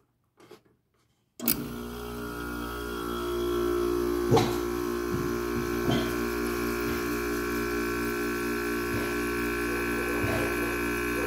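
Window air conditioner switching on about a second and a half in: its compressor and fan start all at once and run with a steady hum made of several steady tones. There are a couple of light knocks along the way.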